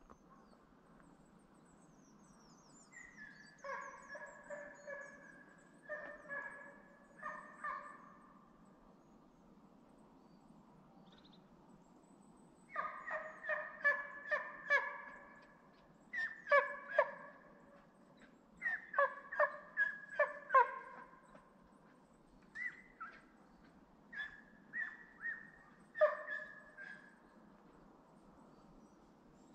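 Hunting hound giving tongue on a scent trail: runs of short barks in irregular groups with pauses between. The hound is driving game that the hunter takes for roe deer.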